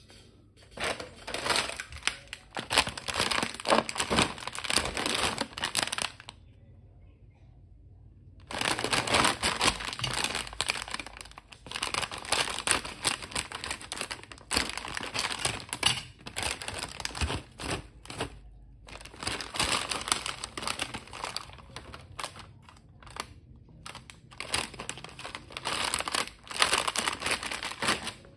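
Foil and plastic snack packets crinkling as they are handled, in bursts of a few seconds, with a quiet gap of about two seconds around six seconds in. Partway through, a packet of popped lotus seeds is cut open with scissors.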